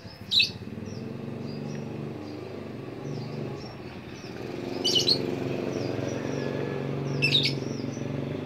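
Strawberry finches giving thin, high chirps over and over, with three short, loud hissing squirts from a fine mist spray bottle: one just after the start, one about five seconds in and one about seven seconds in. A low engine hum runs underneath and grows louder about halfway through.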